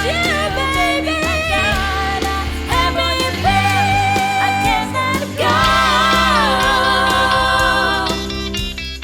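A band playing a song with a lead singer holding long notes with vibrato, over steady bass and accompaniment. The music briefly drops out near the end.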